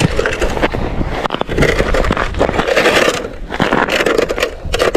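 Jacket fabric rustling and scraping close to the microphone, with crunching ice and slush, while fishing line is pulled in hand over hand at an ice-fishing tip-up.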